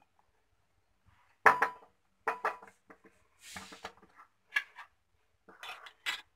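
A utensil knocking and clinking irregularly against a glass jar as chillies, garlic and mango pieces are stirred down into vinegar. There is a short swish about halfway through. The clinks start after a quiet first second or so.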